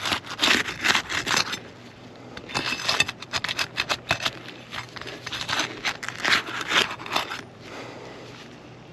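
A tool scraping and prying under asphalt roof shingles to pull the roofing nails, in three spells of rapid scraping strokes with short pauses between.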